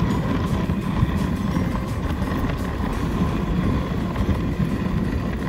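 Wind buffeting the microphone, with a steady low rushing noise as of a dog sled moving over snow.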